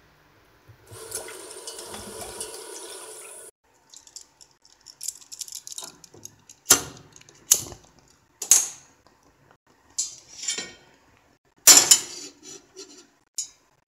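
Tap water running into a stainless steel pot for a couple of seconds. This is followed by a run of sharp clicks and metal knocks as a gas stove burner is lit with a lighter and the pot is set on the stove's metal grate.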